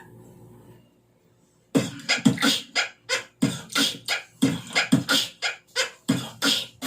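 Beatboxing: a fast rhythm of vocal kick-drum thumps and hissy snare and hi-hat sounds, about four strokes a second, starting a little under two seconds in after a short faint stretch.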